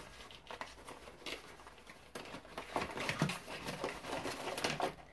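Rustling and crinkling of packaging as small cardboard sample boxes are opened and their contents handled: a run of short crackles and scrapes that gets busier about two seconds in.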